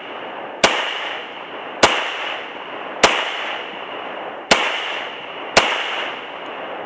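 Five shots from a Ruger P95 9mm semi-automatic pistol, fired singly about one to one and a half seconds apart, each followed by a long echo that dies away.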